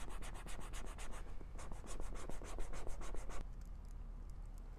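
Razor scraping rapidly back and forth over the wet, flocked top of a vinyl air mattress, shaving off the fuzz so a patch will stick, at about seven strokes a second. The strokes break briefly about a second and a half in and stop about three and a half seconds in.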